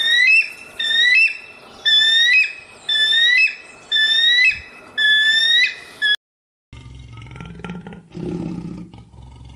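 A bird-like whistled call, rising then levelling off, repeated six times at about one a second. It stops abruptly, and after a short gap there is a quieter low rumbling.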